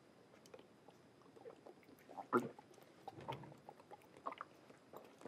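Quiet, with a few faint short sounds spaced irregularly: a man gulping liquor straight from the bottle in several swallows.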